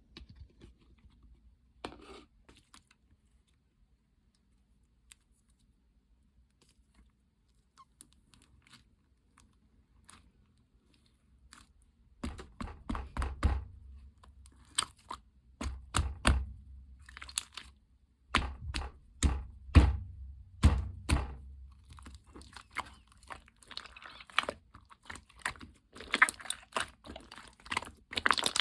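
Hands slapping and pressing a grape-themed slime. A few faint clicks at first, then from about halfway a run of heavy slaps with low thuds, giving way near the end to denser crackling and crunching as the slime is squeezed.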